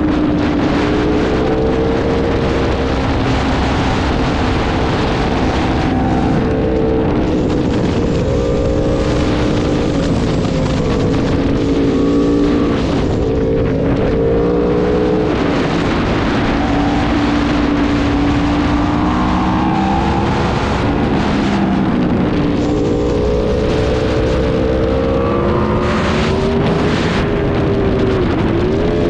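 Superbike engine running hard at speed, its pitch rising and falling with the throttle, over a thick rush of wind noise. Near the end the pitch drops sharply and climbs again.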